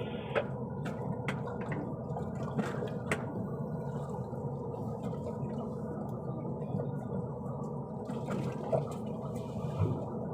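Water sloshing and splashing steadily, with scattered small drips and splashes throughout.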